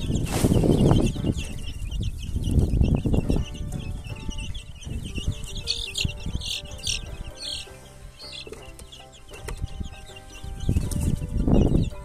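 A group of young chicks peeping continuously, many short high calls overlapping. Louder low rustling bursts come about half a second in, around three seconds in and near the end.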